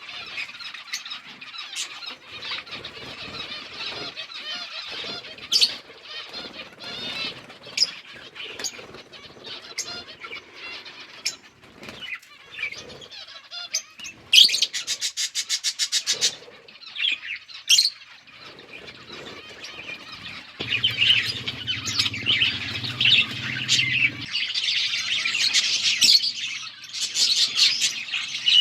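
A flock of budgies chirping and chattering continuously, growing louder near the end. About halfway through, a quick run of strokes for about two seconds, like wings flapping, and later a low steady hum for a few seconds under the chatter.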